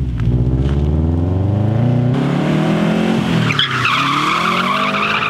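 Car engine revving hard, its pitch climbing, dropping and climbing again, then tyres squealing in a slide from about three and a half seconds in, with the engine still revving.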